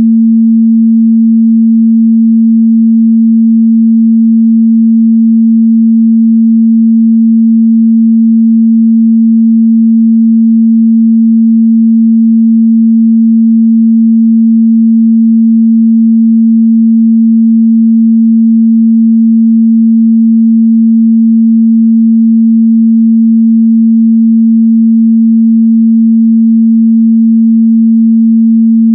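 A steady, loud 226 Hz sine-wave test tone, one pure low hum held at a constant pitch and level.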